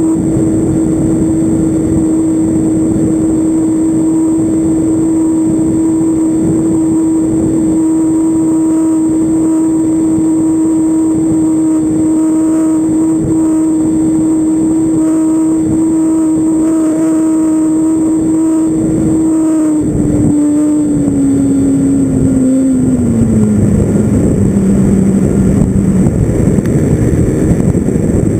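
Tower Hobbies .40 trainer's .40-size glow engine running at a steady high pitch, with wind rushing past an under-fuselage GoPro. About two-thirds of the way in the engine note drops in steps as it is throttled back, and the wind noise grows a little louder.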